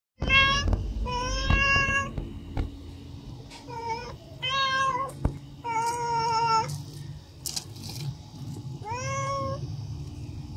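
Tabby cat meowing repeatedly, about six calls with pauses between them, begging for food.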